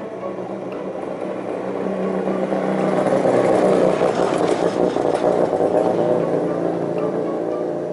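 A motor vehicle's engine passing along the road, growing louder to a peak about three to four seconds in, then fading.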